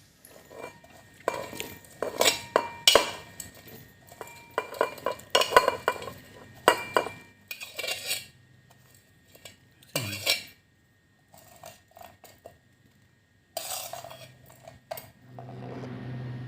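Metal utensils clinking and scraping against dishes and pans in a run of sharp, irregular knocks, thinning out after the first half. A steady low hum comes in near the end.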